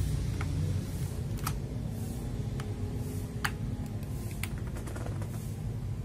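Scattered sharp clicks from an FL Esports MK870 mechanical keyboard being handled and its keys pressed, irregular and about one a second, a few closer together near the end, over a low steady hum.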